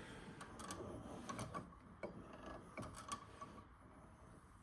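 A few faint, scattered clicks and light knocks of parts and tools being handled, dying away toward the end.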